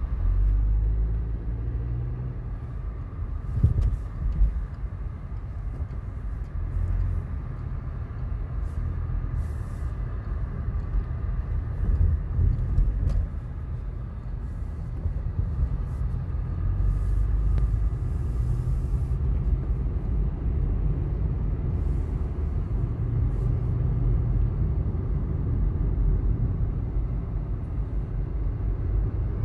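Low, steady rumble of a car's engine and road noise heard from inside its cabin while driving in traffic, with two brief louder knocks about four seconds in.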